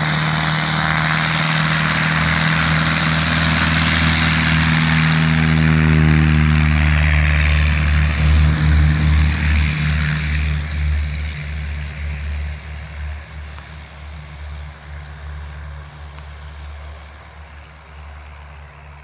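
Piper PA-28 Archer II's four-cylinder Lycoming engine and propeller at full takeoff power. The pitch drops about seven seconds in, and the sound fades steadily through the second half as the plane moves away down the runway.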